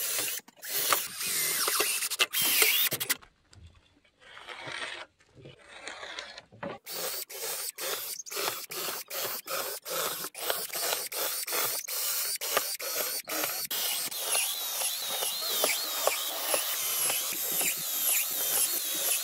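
Cordless drill boring through pressure-treated pine planks into a 50 mm square steel tube frame and driving 75 mm self-drilling screws. It runs in short bursts at first, then in a long stretch of rapid clicking, with the bit squealing near the end.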